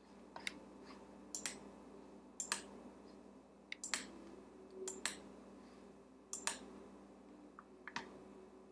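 Computer mouse clicking about once a second, sharp clicks that often come in quick pairs, with a faint steady hum underneath.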